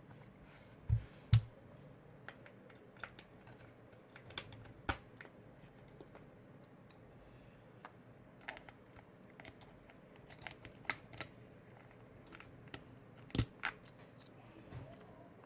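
Keystrokes on an aluminium-cased TKL mechanical keyboard with Kailh Lunar switches, pressed one at a time at an irregular, unhurried pace. The loudest are a pair of deeper presses about a second in and another cluster near the end.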